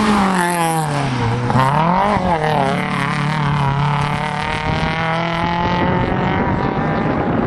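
Rally car engine revving hard at high revs, its pitch climbing and dropping twice at gear changes, then holding a steady note that fades as the car goes away.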